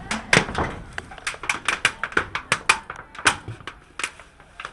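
Red-handled hand tool working the end of a solar module cable, clicking sharply and unevenly about four times a second, with the clicks thinning out near the end.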